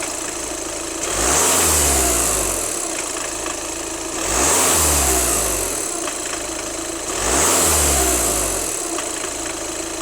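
VW Golf 2.0 TDI (CFHC) diesel engine blipped three times, about three seconds apart, its pitch rising with each rev alongside a high hiss, then settling back to idle. This is the weird sound after acceleration that the owner is asking about.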